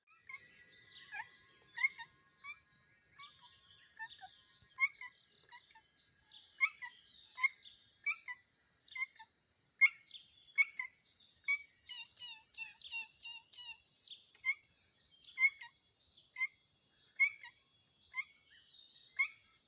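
A steady high insect drone with short, sharp bird chirps repeating about once a second, some louder than others.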